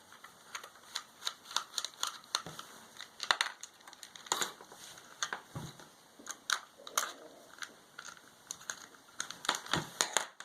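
Irregular clicks, taps and a few dull knocks of hard plastic: the Dremel 300 rotary tool's housing being worked loose and pried open by hand.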